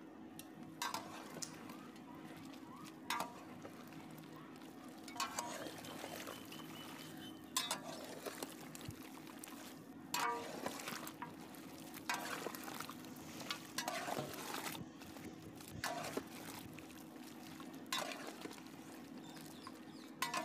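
A large metal ladle clinking and scraping in a big cooking pot as a curry is stirred. There is a clink about every two seconds over a steady low hum.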